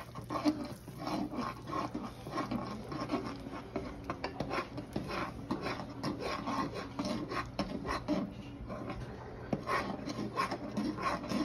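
A utensil stirring hot sugar syrup in a nonstick saucepan, scraping and rubbing against the pan in quick, irregular strokes.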